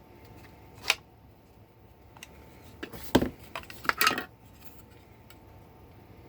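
A few sharp clicks and knocks of hard plastic being handled: one about a second in, the loudest a little after three seconds, and a quick cluster around four seconds.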